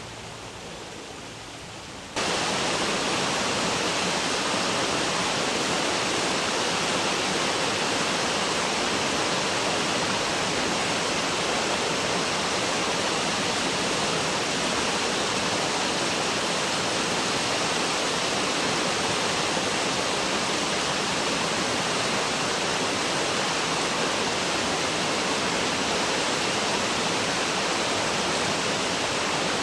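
Steady rush of river water pouring over a step, starting abruptly about two seconds in.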